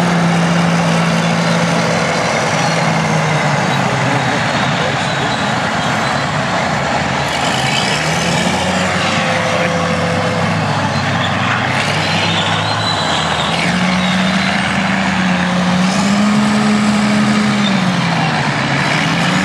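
Diesel engine of an International Harvester Pay Loader 560 wheel loader running under load, its note rising and falling several times as it is throttled up and down, with a last rise near the end.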